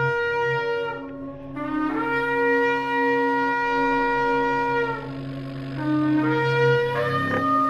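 Shofar blasts: a series of long, held ram's-horn notes, each breaking off and sliding up into the next, with a short blast in between, over a steady low drone.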